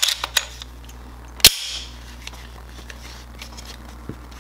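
Glock 19 slide with a compensator being fitted onto the pistol frame. It makes a quick cluster of sharp metal clicks, then one loud snap about a second and a half in as the slide goes home on the frame, and a faint click near the end.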